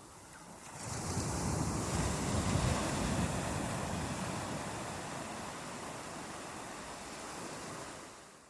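Ocean surf: a wave breaks about a second in and its wash slowly subsides, fading away near the end, with wind buffeting the microphone.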